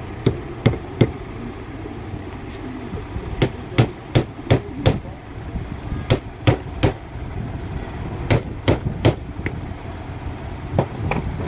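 Hammer tapping on metal parts of a 24-volt starter motor: about sixteen sharp, short-ringing strikes in runs of three to five, roughly three a second, with pauses between the runs.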